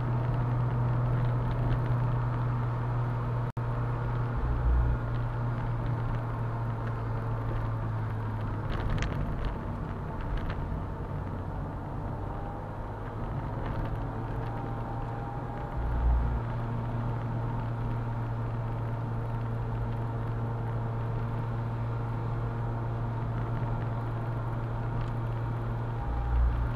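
Convertible car driving along, with a steady low engine hum and road noise heard from inside the car. A few brief low thumps come through, about 4 seconds in, about 16 seconds in and near the end.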